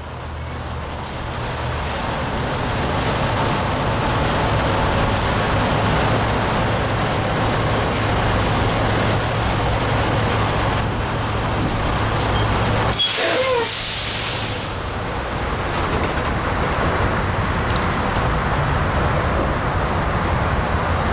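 Diesel semi-trucks idling close by, a loud, steady rumble with a low hum. About two-thirds of the way through there is a brief squeal and a burst of air hiss, typical of a truck's air brakes.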